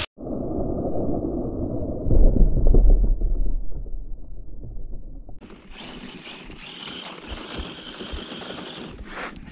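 Arrma Senton 3S radio-controlled short-course truck running on snow. For the first few seconds it sounds muffled, with a heavy low thud about two seconds in; from about five seconds in it turns into a steadier, fuller running sound.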